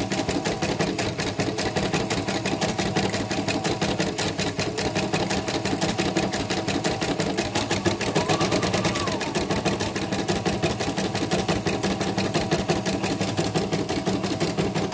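CNY portable embroidery machine stitching a fill design, its needle going at a fast, steady rhythm. It runs smoothly ("lancar") on a newly replaced presser foot.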